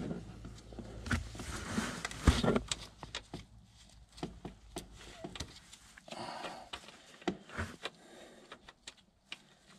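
Scattered small clicks, knocks and rubbing as a rubber-gloved hand works a plug against the Yamaha Viking's front differential housing, trying to start its fine threads by hand. The sharpest knocks come about one and two seconds in.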